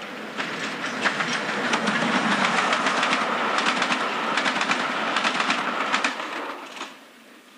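Train running along the rails: a dense clatter of wheels over the track with a steady squeal, fading away near the end.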